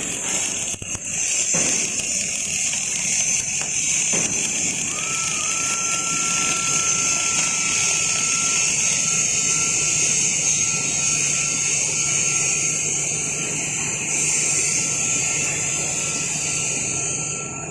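Automatic TIG welding arc from a motorized welding head burning with a steady hiss. A faint, thin steady whine joins about five seconds in.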